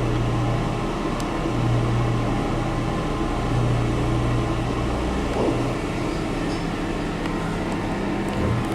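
Steady mechanical hum inside a Kone MonoSpace lift car as it travels, the cab's fan and drive running, with a low drone that swells and eases every second or so.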